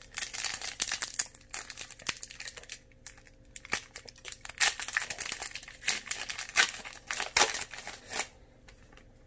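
Foil wrapper of a Pokémon trading-card booster pack crinkling as it is torn open and handled by hand, a run of sharp crackles that stops about a second before the end.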